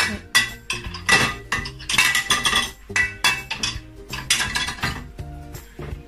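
Plates clinking against one another and the wire rack of a dishwasher as they are lifted and handled: a quick, irregular run of clinks, with background music underneath.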